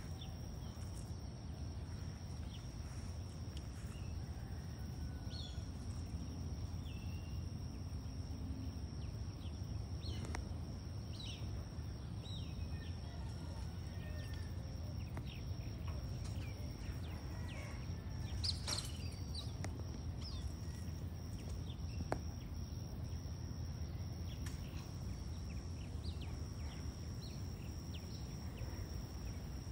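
Outdoor ambience: scattered short bird chirps and calls over a steady low rumble and a steady high-pitched whine, with one louder, sharper call about two-thirds of the way through.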